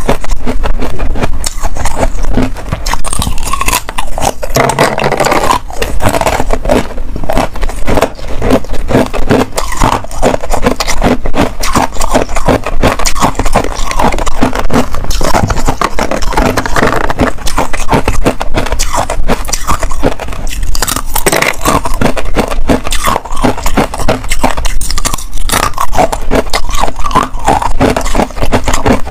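Rapid, continuous crunching and crackling of frosted ice being chewed close to a clip-on microphone.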